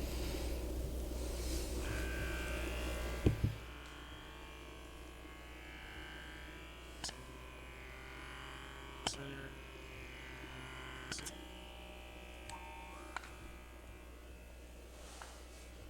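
Steady electric motor buzz of a suction cupping device clinging to the sole of the foot to work the plantar fascia. About three seconds in there are two clicks and the buzz drops to a quieter level, with a few single sharp clicks after.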